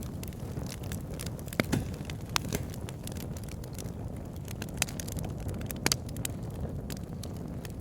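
Wood fire burning in a fireplace: a steady low rumble of flame with logs crackling in scattered sharp pops, a few louder snaps among them.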